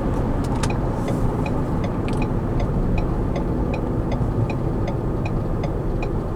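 Road and engine noise inside the cabin of a moving 2015 Ford Edge, steady, with a light regular ticking a little under three times a second from about two seconds in.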